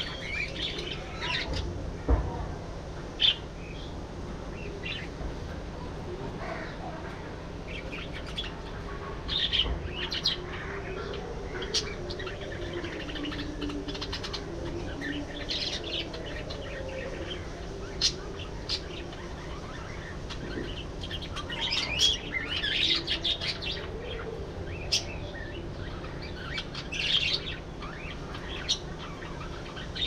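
Budgerigars chirping, with short high chirps scattered irregularly throughout and two sharp clicks a few seconds in.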